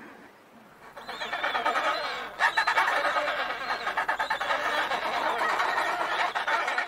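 A group of penguins calling, many overlapping calls in a dense chatter. It starts about a second in and gets louder about two and a half seconds in.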